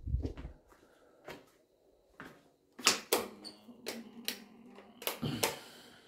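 Footsteps and scattered knocks and clicks on a hard marble-tiled floor as someone walks through a small room and handles a door.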